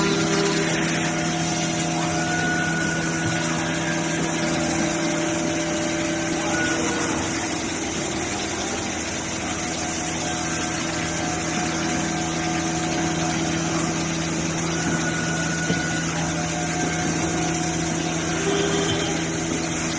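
Five-axis CNC wood router running: a steady machine hum with a constant whine, and faint higher tones that come and go for a few seconds at a time.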